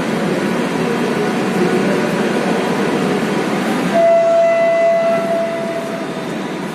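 Lucknow Metro train standing at the platform with a steady mechanical hum. About four seconds in, a single steady tone sounds for a little over two seconds.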